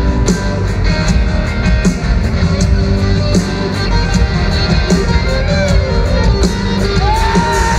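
Rock band playing live through a concert PA: electric guitars, bass and drum kit, with regular drum hits under a dense, loud wall of guitar.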